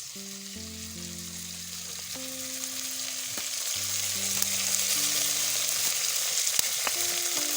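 Onion, green pepper and tomatoes frying in a pan, a steady sizzle that grows louder, under soft background music.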